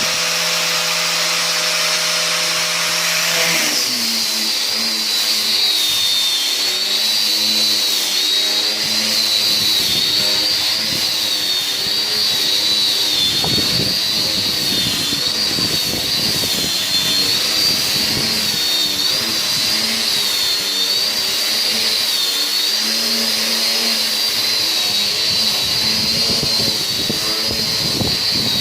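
An electric woodworking power tool running continuously with a high whine that wavers slightly. Its sound changes about four seconds in, then holds steady.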